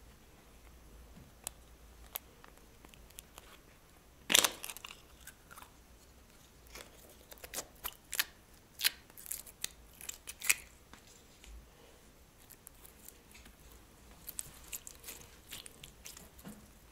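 Scattered sharp clicks, snips and crackles from handling slime and plastic piping bags. There is a loud click about four seconds in, a run of them in the middle, and fainter ones near the end.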